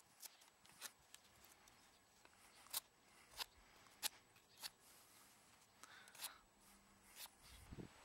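Knife blade shaving bark off a small block of oak branch: a series of about seven short, sharp scrapes at irregular intervals.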